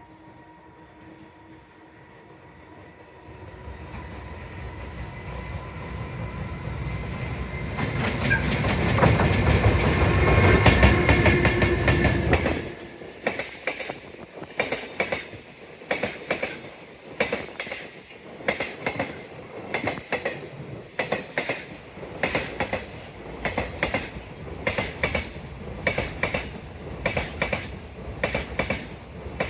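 JR Freight EH200 electric locomotive approaching and passing close by, its rumble building to a loud peak about ten to twelve seconds in and then dropping off sharply. The Koki container wagons follow, rolling past with a steady, rhythmic clickety-clack of wheels over the rail joints.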